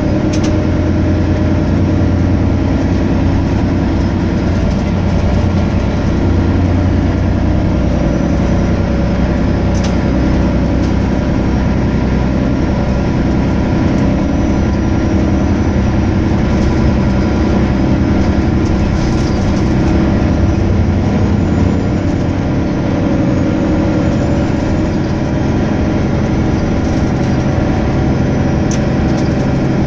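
Volvo DH12D 12.1-litre six-cylinder diesel engine of a Volvo B12BLE bus running steadily, a deep even drone heard inside the passenger cabin near the rear.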